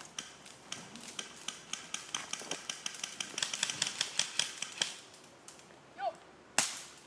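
Airsoft guns firing: a rapid run of sharp clicks, about five a second at their thickest, then a single louder crack near the end.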